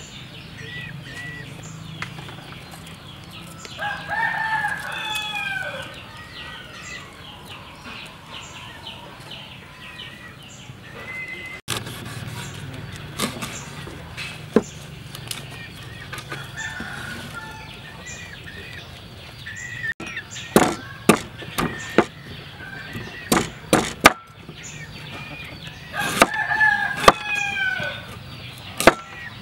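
A rooster crows twice, about four seconds in and again near the end. From about twenty seconds in, a cleaver chops in sharp, quick strokes on a wooden cutting board; these are the loudest sounds.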